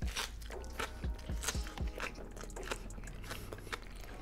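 Close-miked biting and chewing of crunchy Hot Cheetos–crusted fried chicken: a rapid run of crisp crackles from the breading, with a few soft low thumps.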